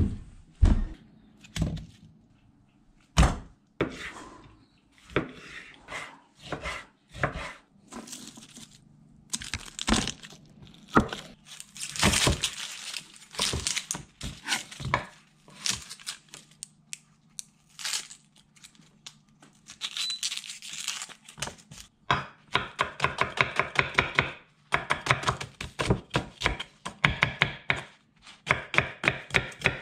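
Kitchen knife cutting an onion on a wooden chopping board. Scattered single knocks and papery rustling of onion and garlic skins being peeled come first, then rapid, even chopping strokes, several a second, from about two-thirds of the way in.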